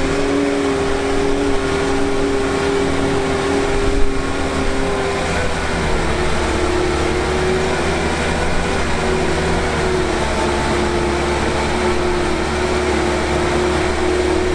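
ATAC-V Patrol's diesel engine running steadily under load with a constant whine, its pitch easing down slightly about halfway through, as the big low-pressure tires spin in soupy swamp mud without getting grip. A single small knock about four seconds in.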